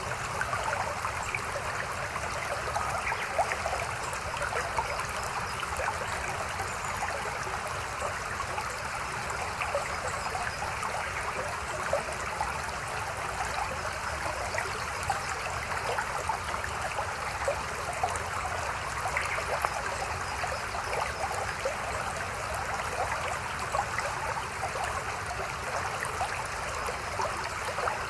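Mountain stream flowing and trickling over rocks: a steady, even babble of running water with small splashes throughout.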